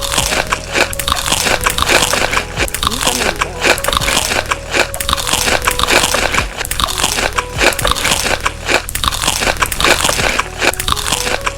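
Close-miked chewing of crunchy food, a dense run of loud crunches and crackles several a second, starting and stopping abruptly, over background music.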